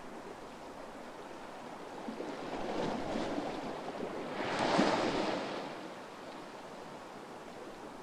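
Small waves washing onto a sandy beach: a steady hiss of surf, with one wave swelling about three seconds in and a louder one breaking near the middle, then fading back.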